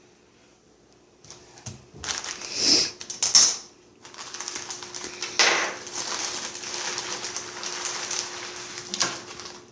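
Plastic crinkling and rustling as a laptop screen panel is handled. Two loud crackles come about two and a half and three and a half seconds in, followed by several seconds of continuous crinkling that stops just before the end.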